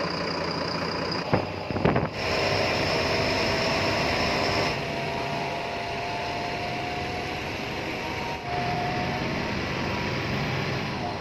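Bus engine running steadily, with a couple of short knocks between one and two seconds in.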